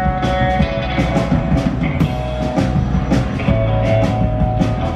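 Live rock band playing an instrumental passage between vocal lines: electric guitar over a steady drum-kit beat with regular cymbal hits.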